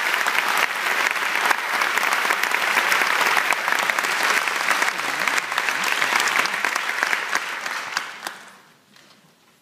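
Audience applauding, dense and steady, then dying away over about a second near the end.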